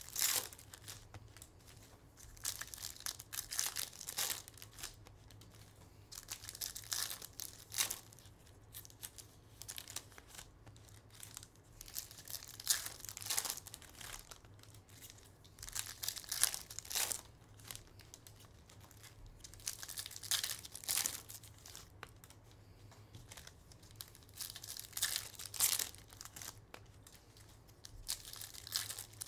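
Baseball card pack wrappers being torn open and crinkled, in clusters of rustling every few seconds, over a faint steady low hum.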